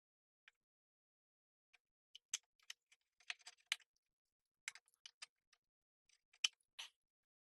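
Faint, irregular small clicks and scratchy taps in loose clusters as a plastic welding iron is worked over a plastic tank, melting plastic onto embedded metal mesh.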